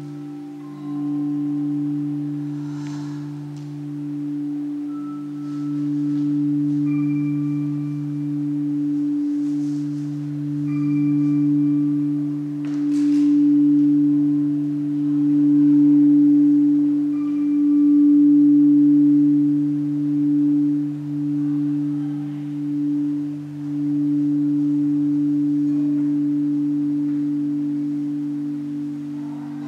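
Slow ambient music accompanying a dance: a sustained low drone that swells and fades, with short higher bell-like tones sounding every few seconds and a few faint swishes.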